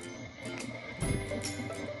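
Background music: a ukulele tune with a steady rhythm.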